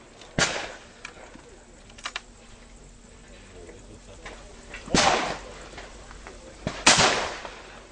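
Two shotgun shots about two seconds apart, fired at a pair of clay targets, each ringing out with a short echo. A fainter sharp bang comes about half a second in.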